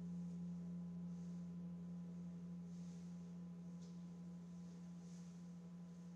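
A sustained low musical drone on one steady pitch with a slight pulsing wobble, slowly fading.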